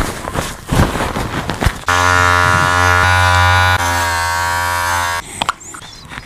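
Tissue rubbing and crinkling on a corgi's fur, close to a clip-on microphone, then about two seconds in a small electric grooming trimmer buzzing steadily for about three seconds before it stops suddenly.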